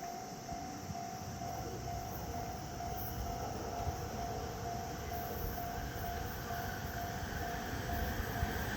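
Japanese railway level-crossing warning bell ringing, a steady repeating electronic ding. Under it a low rumble grows louder toward the end as a Keihin-Tohoku Line train approaches the crossing.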